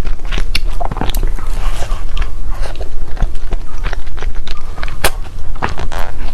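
Someone biting and chewing Korean cake close to the microphone, with many irregular sharp clicks and crackles of the mouth and food.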